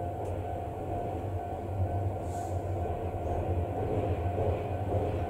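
C11 207 steam tank locomotive and its train running toward the station, a steady rumble with a low hum that grows slightly louder as it approaches.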